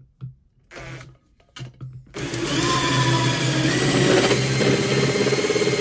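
Cordless drill driving a 25 mm Armeg Acceler8 cobalt hole saw into thin sheet steel. After a couple of short bursts, the drill runs steadily and loudly from about two seconds in as the saw cuts.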